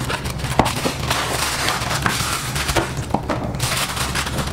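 Plastic wrapping crinkling and a cardboard box being handled as a packed fan is pulled out of its box, with many small crackles and clicks.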